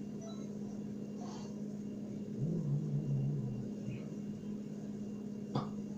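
Steady low electrical hum. About halfway through, a lower drawn-out sound lasts about a second, and a single sharp click comes near the end.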